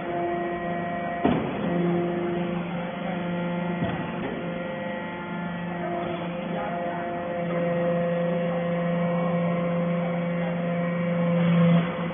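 Hydraulic metal-shavings baler running: a steady hum from its hydraulic pump and motor. The hum grows stronger for a few seconds at a time and drops back sharply near the end, with a couple of short knocks in the first few seconds.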